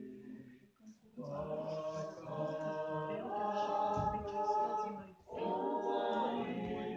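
A small group of women and children singing together unaccompanied, in held phrases with a short break about a second in and another about five seconds in.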